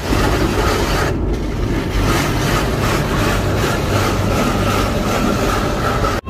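Rotating brushes of an automatic car wash scrubbing over a car's windows and body, heard from inside the cabin: a loud, steady rushing scrub with regular swishes of the brush strips, and a steady whine joining in the second half.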